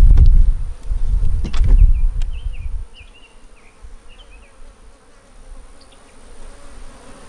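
Honey bees buzzing steadily at an opened hive. For the first few seconds a loud low rumble with a few sharp knocks covers them, then the hum is left alone with a few short high chirps.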